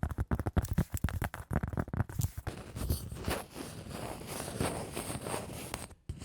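ASMR tapping and scratching on a cork pad and a wooden block: a quick run of sharp taps, then from about halfway a slower, rhythmic scratching at about two strokes a second.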